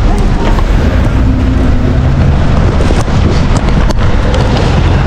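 Loud, steady low rumble of street traffic, with scattered clicks and rattles.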